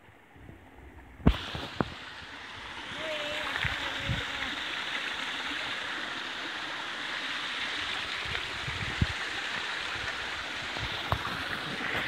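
Small waterfall splashing into a rock pool: a steady rush of falling water that comes in abruptly about a second in, with a few short knocks from handling the phone.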